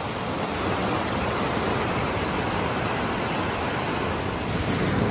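Creek rapids rushing through the gap of an old wooden logging dam: a steady, even rush of water.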